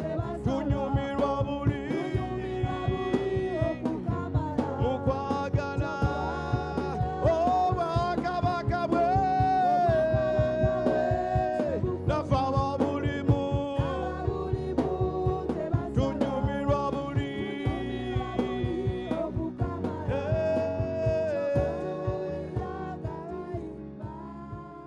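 Music with a singing voice over a steady beat, fading out near the end.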